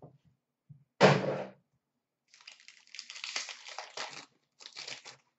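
A foil-wrapped hockey card pack (2017-18 Upper Deck SP Authentic) is torn open with a loud rip about a second in. Then the wrapper crinkles in two spells as it is pulled apart around the cards.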